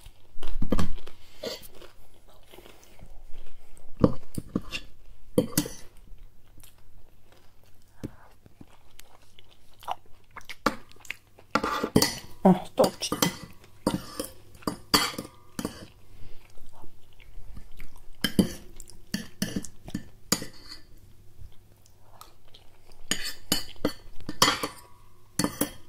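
Close-up eating sounds: crunchy chewing of toasted bread, with a fork and spoon clinking and scraping on a ceramic plate in irregular taps.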